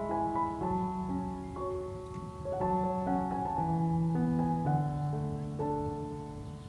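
Soft, slow piano music: single held notes following one another and overlapping.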